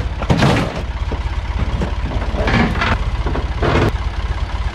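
A tractor front-end loader's engine runs steadily with an even low pulse while the loader lifts a stripped car body shell on its bucket. Three louder bursts of noise rise above the engine, about half a second in, at two and a half seconds and near the end.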